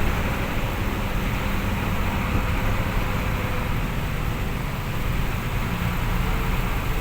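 Dump truck engine running steadily as the truck drives, with a constant low rumble and an even rushing noise over it.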